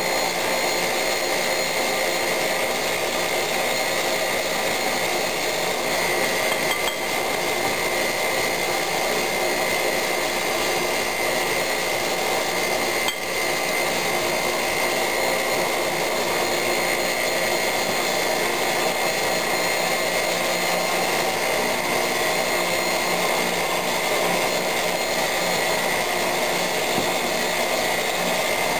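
Electric stand mixer running steadily with a constant whine, its beaters churning cake batter in a glass bowl. A spatula scrapes and clinks now and then against the glass.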